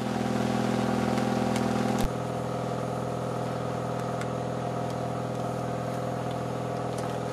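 A boat's engine running steadily with a low, even drone. About two seconds in there is a sharp click, and after it the drone carries on a little quieter.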